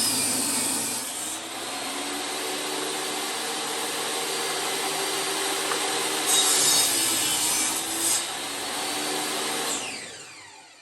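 Wood lathe running while a turning tool cuts a spinning wooden blank into an egg shape, the cutting louder for a couple of seconds past the middle. Near the end the lathe is switched off and winds down, its hum falling in pitch.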